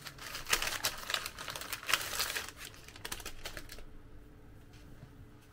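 Crinkly handling of a chocolate selection box's packaging, a rapid run of small crackles and clicks that dies down about four seconds in.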